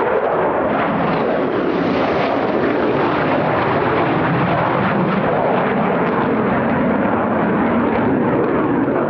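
Loud, steady jet noise from a low-flying F-15E Strike Eagle's twin turbofan engines, a dense rushing sound that swells slightly about two seconds in.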